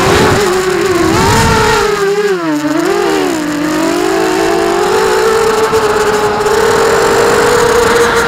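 FPV quadcopter's electric motors and propellers whining, as heard from the onboard camera. The pitch drops and wavers about two to three seconds in as the throttle eases, then holds steady.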